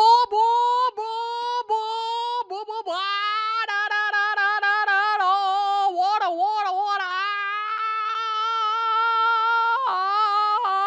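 A man vocally imitating a 450 dirt bike engine, a high-pitched "brop": a string of short rising notes, each cut off and started again, then one long held note that wobbles about midway and stops near the end.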